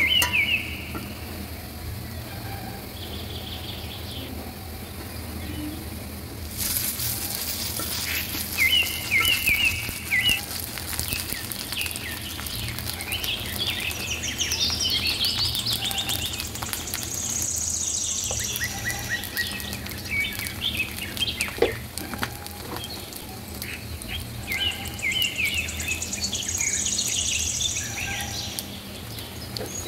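Birds chirping again and again over the hiss of onions frying in oil in a steel karahi, which grows stronger about six seconds in, with a steady low hum underneath. There are scattered light clicks and one sharp knock a little after two-thirds of the way through.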